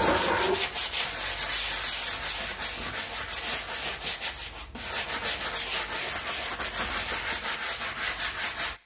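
Stiff-bristled hand brush scrubbing wet, soapy concrete paving blocks in rapid back-and-forth strokes, scouring off moss. There is a brief pause about halfway through, and the sound cuts off suddenly at the very end.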